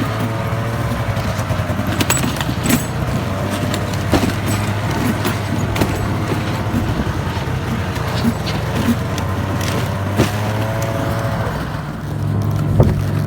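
A vehicle engine running steadily, with scattered knocks and rattles from the ride. Its note steps up near the end.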